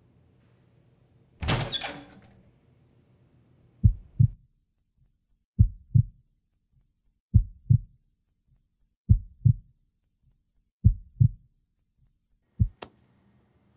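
Slow heartbeat sound effect: six paired low thumps (lub-dub), about one beat every 1.75 seconds, starting about four seconds in. Before it, about a second and a half in, a short sharp burst of noise.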